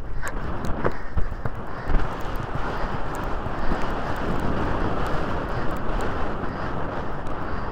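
Wind rushing over a helmet-camera microphone while a horse gallops, with its hoofbeats underneath and a few sharper knocks in the first two seconds.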